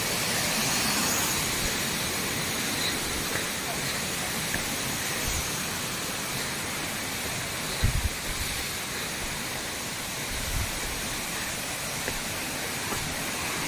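Waterfall pouring over rocks: a steady rush of falling water, with a few brief low thumps, the strongest about eight seconds in.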